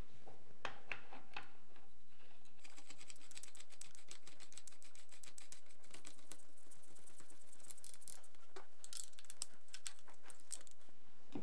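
A Shadow-1 muzzle device being screwed onto a Vityaz-SN submachine gun's 16x1 muzzle adapter. There are a few separate metal clicks and knocks at first. From a few seconds in comes a long run of rapid small metallic clicks as the device is turned down onto the threads.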